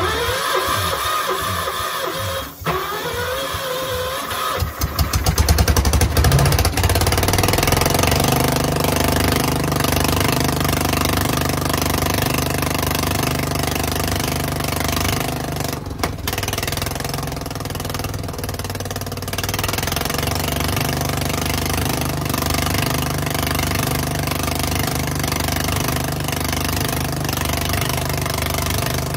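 Kohler K241S single-cylinder engine on a gas-powered air compressor cranking for about five seconds, then catching. It settles into steady running as it drives the compressor pump to build tank pressure.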